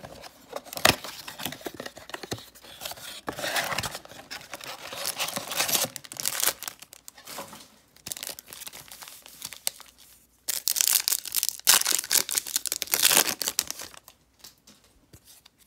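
Plastic wrapping of a trading-card blaster box and its card packs being torn open and crinkled in irregular rustling spells, with a sharp snap about a second in and the loudest tearing near the end.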